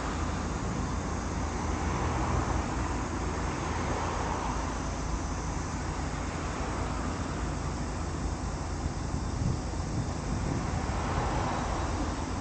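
Steady outdoor background noise of road traffic, swelling a few times as vehicles go by, over a low rumble of wind on the microphone.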